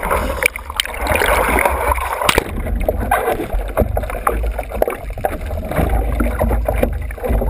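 Seawater splashing and rushing over a surfboard-mounted camera's housing as the surfer paddles and dives the board under a wave, with a heavy low rumble of water on the housing. The sound turns duller and muffled about two and a half seconds in while the camera is underwater.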